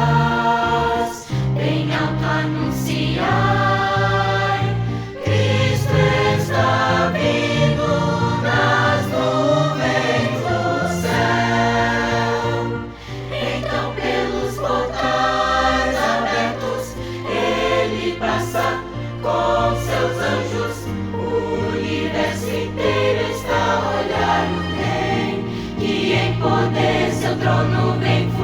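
A choir sings a Christian hymn over instrumental accompaniment, with sustained bass notes underneath.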